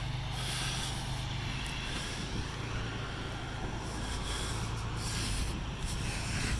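Diesel engine of a semi truck running as a steady low drone.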